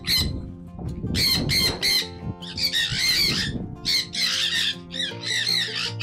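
A flock of sun conures calling, many birds at once, in clusters of quick repeated calls, over background music.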